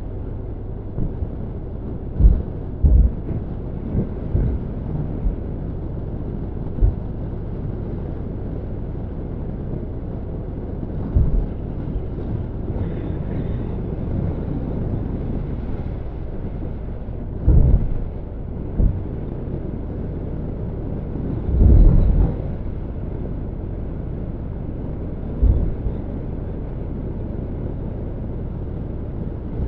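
Riding noise from a Honda NC750X motorcycle at steady cruising speed. Wind rushing over the bike-mounted microphone makes a low, steady rumble, with several short, loud low thumps of wind buffeting scattered through it.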